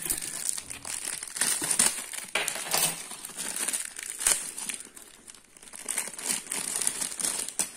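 Thin plastic packaging bag crinkling and crackling irregularly as hands handle and unwrap it, easing off briefly about two thirds of the way through.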